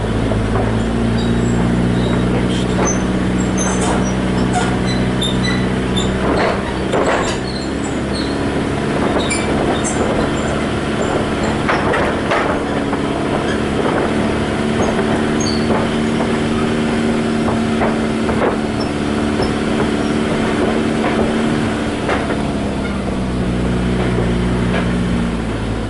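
A vehicle engine runs steadily as it crosses a squeaky bridge. The bridge's deck and fittings give out repeated short high-pitched squeaks and scattered knocks and clatters under the wheels.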